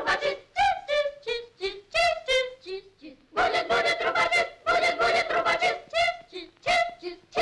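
A chorus of high voices sings a quick staccato chant in short, clipped syllables. In the first phrase the pitch steps downward, and after a brief pause about three seconds in the chant picks up again.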